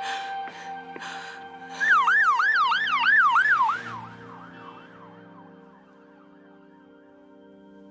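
An emergency-vehicle siren in a fast yelp starts about two seconds in, its pitch sweeping up and down about three times a second, then fades away. Music with steady held chords plays under it.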